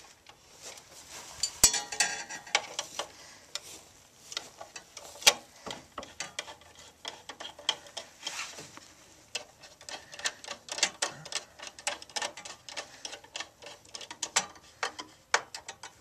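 Irregular small metallic clicks, taps and scrapes of a screwdriver working screws into a Nelson waterer's metal housing, with a few sharper knocks.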